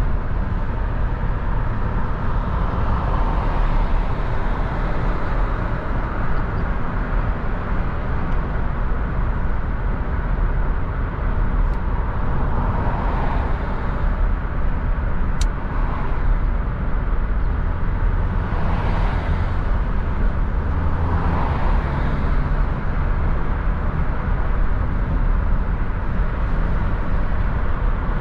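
Steady road and engine noise of a moving car, a continuous low rumble, with a single faint click about halfway through.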